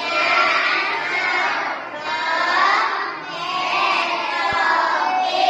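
Children's voices singing a melody together, high-pitched and sustained, with the pitch rising and falling across several held notes.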